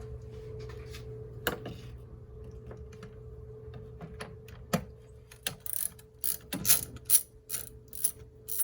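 Ratchet wrench backing out a headlight mounting bolt: a few scattered clicks and knocks, then from about five and a half seconds a quick run of ratcheting strokes, two or three a second, over a faint steady hum.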